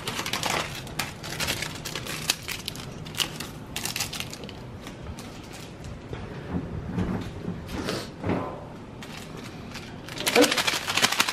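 Plastic instant-noodle packaging crinkling and rustling as it is handled and torn open, with a fast run of sharp crackles near the end as a small seasoning sachet is worked in the fingers.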